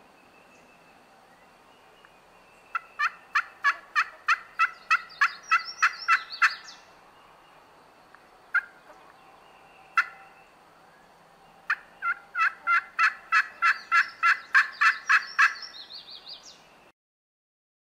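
Turkey call worked by a hunter, yelping in imitation of a hen turkey: a run of about a dozen sharp yelps at about four a second, two single yelps, then a second, longer run that trails off near the end.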